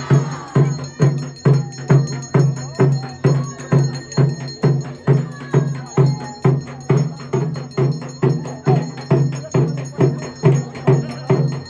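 Ceremonial drumming: a fast, even beat of roughly two and a half strokes a second, held without a break.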